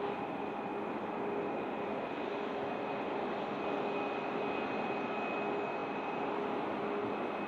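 Boeing 737 MAX 8-200's CFM LEAP-1B turbofan engines running at a steady power, a constant rush of jet noise with a few high steady whining tones on top.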